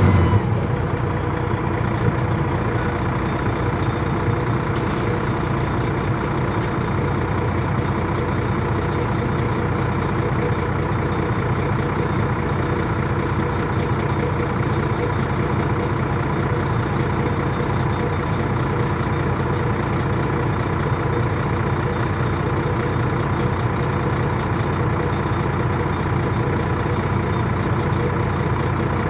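Detroit Diesel Series 60 diesel engine of a 2002 MCI D4000 coach running steadily, heard from on board the bus.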